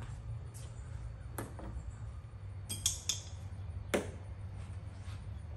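Hand tools clinking against the bolts and nuts of a hand-truck wheel rim as it is taken apart: a few sharp clicks, the loudest about four seconds in, over a steady low hum.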